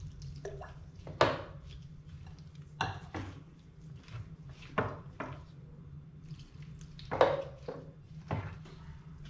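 A spoon knocking and scraping against a glass mixing bowl as a thick vegetable fritter batter is stirred, with about seven irregular clinks; a little water is poured into the bowl at the start. A low steady hum runs underneath.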